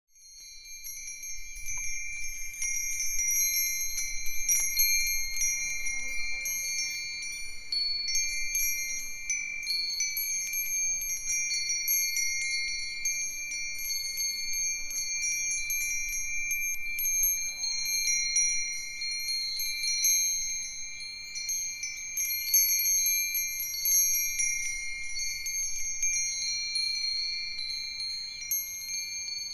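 Five Japanese fūrin wind chimes ringing together in the breeze: Myochin iron fire-chopstick chimes, Nambu cast-iron bells, Nousaku and sanukite chimes. Frequent light strikes over long, bright, high bell tones that ring on and overlap. The sound fades in over the first couple of seconds.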